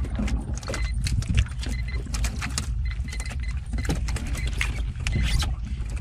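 Wind rumbling on the microphone and water slapping against the hull of a small open boat at sea, with a steady run of irregular splashes and knocks.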